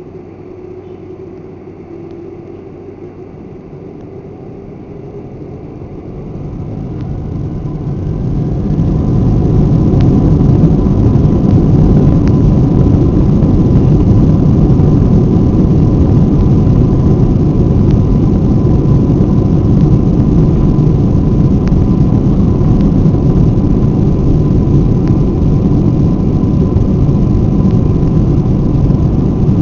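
Boeing 747-400's four jet engines heard from inside the cabin, spooling up to takeoff thrust: a moderate steady noise swells between about six and ten seconds in into a loud, even roar with a faint steady whine, held through the takeoff roll.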